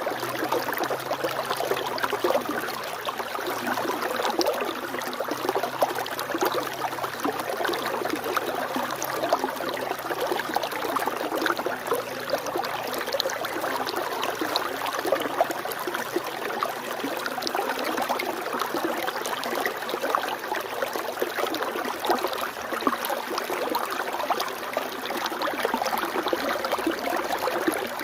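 Stream water flowing steadily, with constant small splashes.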